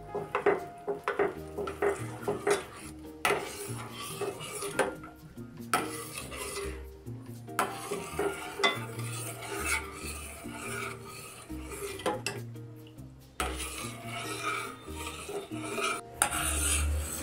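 A steel spoon stirring tapioca pearls into milk in a stainless steel saucepan, scraping and clinking against the pan in irregular strokes with a few brief pauses.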